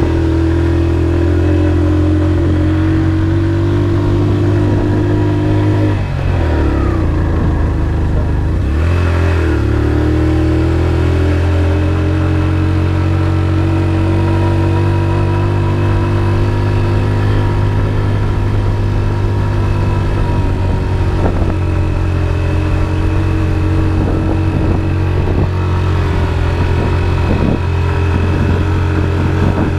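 Motorcycle engine running steadily under way, heard from the pillion seat. The engine note dips and comes back up twice, a few seconds apart, as the throttle eases off and opens again.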